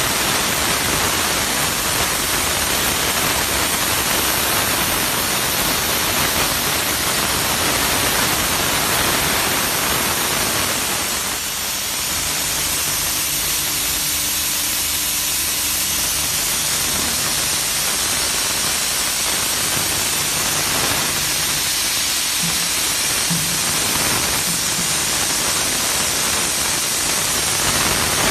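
Steam jetting from the spray gun of a steam car-wash machine: a loud, steady hiss, dipping briefly about halfway through, with a faint low hum from the machine under it for a while after.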